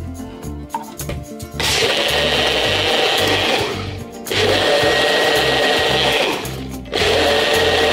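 Small personal blender motor running in three short bursts with brief pauses between, chopping bay leaves in water; the first burst starts about a second and a half in.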